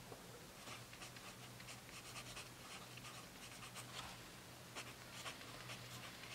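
Pen writing on paper: faint scratching of short strokes as words are lettered by hand.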